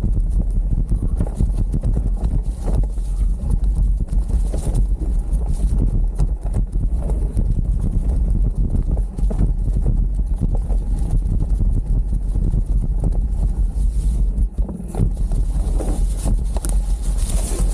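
Full-suspension mountain bike riding downhill on a dirt trail over fallen leaves: tyres rumbling over the ground while the bike rattles with a constant run of small knocks from bumps.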